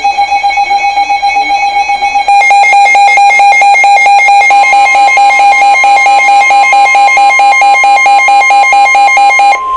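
Electronic alarm tone pulsing rapidly, about five beeps a second. About two seconds in it switches to a louder beeping pattern, and a second, higher tone joins a couple of seconds later. It cuts off abruptly near the end.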